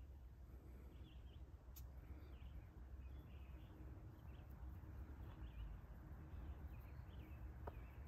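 Quiet woodland ambience: faint, scattered chirps of small birds over a low steady rumble, with a couple of faint clicks.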